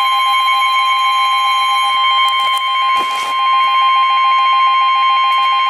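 Emergency Alert System attention signal for a tornado warning: a loud, steady, high-pitched tone with a faster pulsing beep beneath it. A brief noisy knock cuts in about three seconds in.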